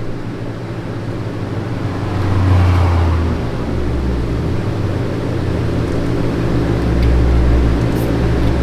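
Steady low mechanical hum of background machinery, with a deeper rumble that swells about two and a half seconds in and again near the end.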